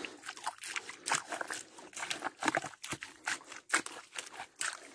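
Waterlogged mangrove mud crackling: irregular quick clicks and pops, several a second, with a faint wet trickle beneath them.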